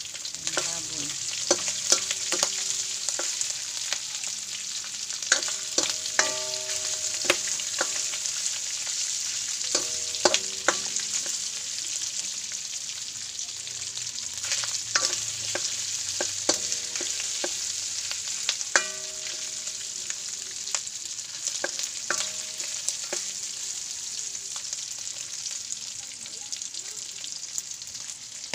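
Pork and garlic frying in oil in a wok, a steady sizzle, while a metal spatula stirs. Its knocks against the pan ring out briefly, a dozen or so times.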